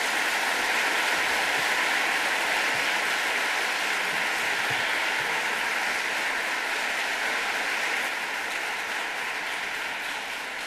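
Audience applauding, a steady dense clapping that starts to taper off over the last few seconds.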